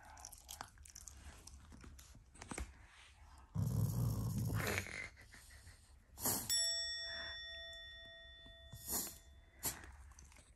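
A black Shiba Inu gives a short low grumble, followed a couple of seconds later by a single bell-like ding that rings on and fades over about three seconds, among faint scattered clicks.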